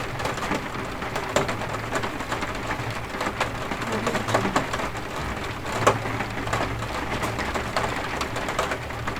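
Heavy rain falling outside a window: a steady rush of rain with many sharp drops and splashes striking hard surfaces, one louder splat about six seconds in.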